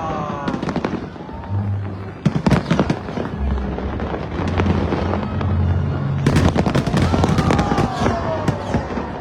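Aerial fireworks bursting in rapid volleys of bangs and crackles, bunched about two seconds in and again around six seconds in, over background music with steady bass notes.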